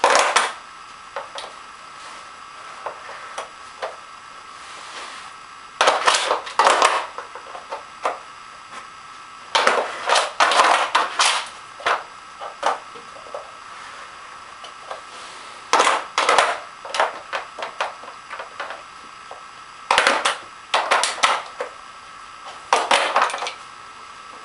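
A plastic Nina Ottosson Dog Twister puzzle toy clattering and scraping in about six bursts of a second or two, as its sliders and pieces are pushed and knocked around on the floor.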